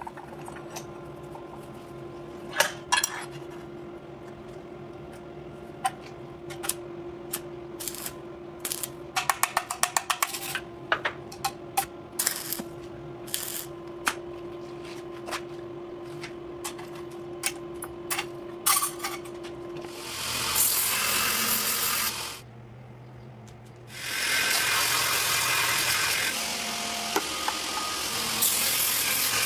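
Knife-making shop work: a steady machine hum with scattered light taps and clicks, including a quick run of them about ten seconds in. Then come two stretches of abrasive grinding noise, one about twenty seconds in and a longer one from about twenty-four seconds.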